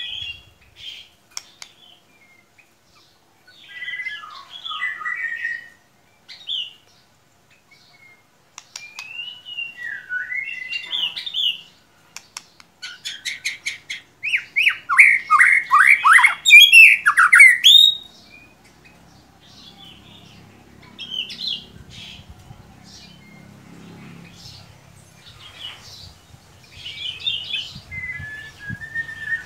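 White-rumped shama (murai batu) singing in separate varied phrases of whistles, slurred notes and rapid trills, loudest in a fast run of sweeping notes about halfway through, followed by a quieter stretch before more phrases near the end. It is a lure recording used to prompt a captive shama to sing.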